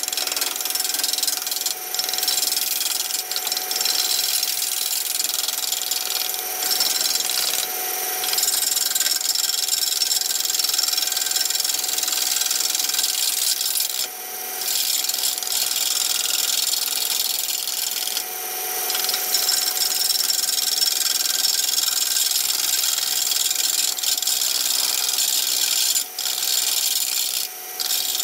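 Turning tool cutting a spinning redbud blank on a Nova 16/24 wood lathe while roughing it round: a steady high hiss of cutting with short breaks each time the tool comes off the wood, over a faint steady whine.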